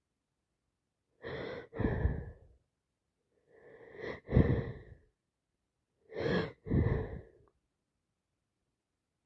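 Three sneezes in a row from a woman with a head cold and sinusitis. Each is a short, softer intake of breath followed at once by the louder sneeze, spaced about two and a half seconds apart.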